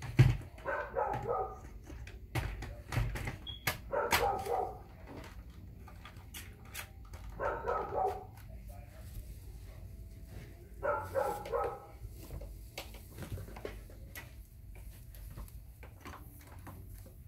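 A dog barking in short clusters every three to four seconds, with scattered light clicks and knocks between the barks.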